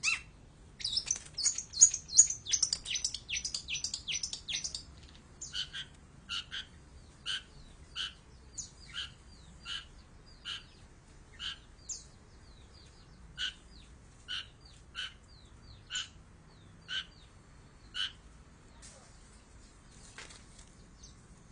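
Long-tailed shrike (cendet) calling: a rapid run of high chattering notes for the first few seconds, then single sharp calls repeated about once a second, stopping a few seconds before the end.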